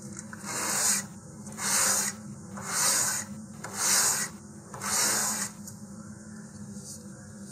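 A paper-skinned balsa fin, its edges hardened with super glue, rubbed across a sheet of fine sandpaper to sand the edges square: five rasping strokes about a second apart, stopping after about five seconds.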